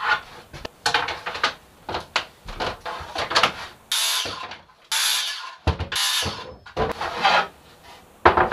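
Cordless circular saw making short crosscuts through wooden boards, heard as a quick string of brief bursts about four to seven seconds in. Knocks and clatter from the boards and tools being handled come between the cuts.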